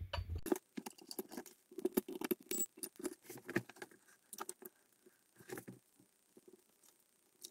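Irregular light clicks, taps and rustles from gloved hands moving a digital multimeter and handling its test leads and wires on a work mat, as the meter is set up to measure current. The handling noises thin out over the last couple of seconds.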